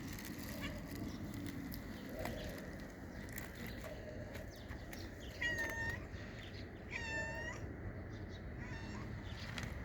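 A hungry cat meowing: two clear, high meows about halfway through, a second and a half apart, and a fainter third near the end.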